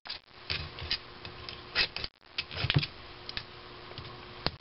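Irregular light clicks, taps and scuffs of the cast-iron cylinder head of a McCormick-Deering Type M engine being lifted and turned on a wooden workbench and its gasket sheet.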